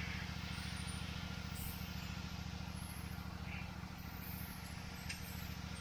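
Small petrol engine of a pressure washer running steadily at a constant speed, cutting off abruptly at the end.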